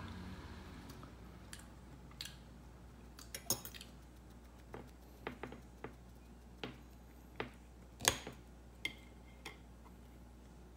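Eating sounds: about a dozen short, irregular clicks and smacks of mouth and tongue, the loudest about eight seconds in.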